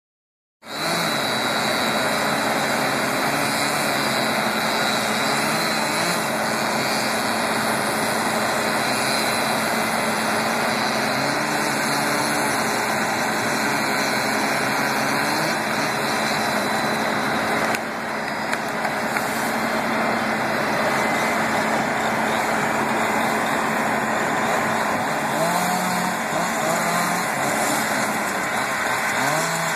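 An engine running steadily at an even, loud level, starting about a second in, with a brief dip in level a little past halfway.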